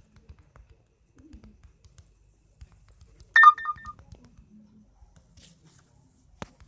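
Android phone notification tone for an incoming WhatsApp message: a quick run of short, bright electronic beeps about halfway through. A single sharp click near the end.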